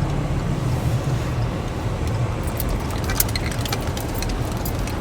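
Car's engine and road rumble heard from inside the cabin as the car rolls in to park, with scattered light clicks and crackles from about two and a half seconds in.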